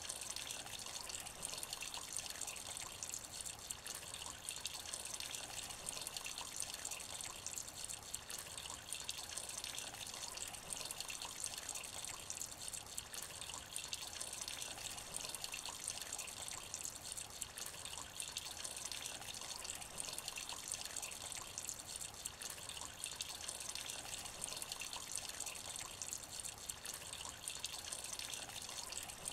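Light rain falling on shallow water: a steady hiss of many small drops, dense and unchanging.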